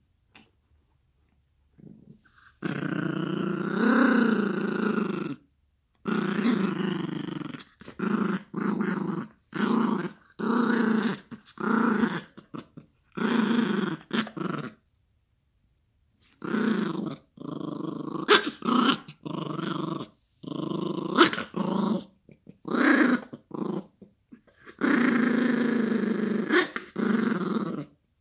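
Yorkshire terrier growling in play while tugging at a plush toy. The growls come in repeated spells of about a second, with short pauses between them, and one longer growl of nearly three seconds about three seconds in.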